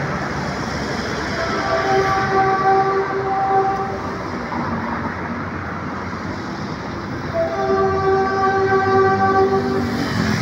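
Passing train with its rumble and a steady, horn-like chord of several tones, held for about two seconds early on and for nearly three seconds near the end.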